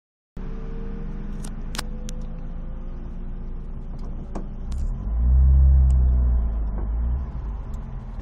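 Ford Focus ST's engine running at low revs, heard from inside the cabin as a steady low drone that rises slightly in pitch, with a few sharp clicks. About five seconds in, a loud low rumble swells and then fades over about two seconds.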